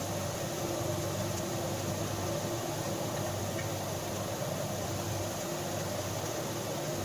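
Steady mechanical hum over an even hiss, with no change in level.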